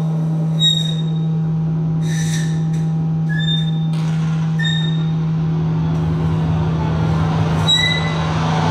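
Experimental improvisation for live electronics and trumpet: a steady low drone holds under short high-pitched blips and brief bursts of hiss. The noise and low rumble thicken near the end.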